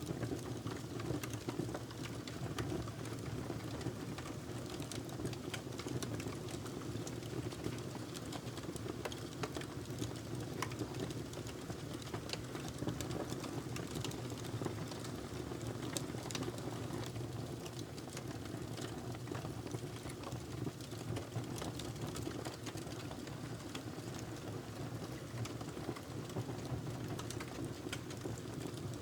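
Wood fire burning in a fireplace: a steady low rush of flame with frequent small crackles and pops.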